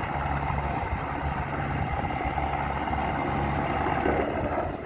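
PZL W-3WARM Anakonda helicopter flying a display pass, its rotor chop and turbine engines running steadily with a low throb.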